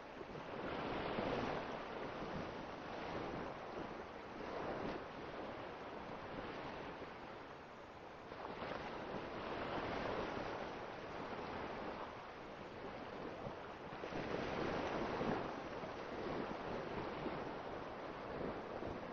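A rushing, surf-like noise that swells and ebbs in slow surges every few seconds, like waves breaking.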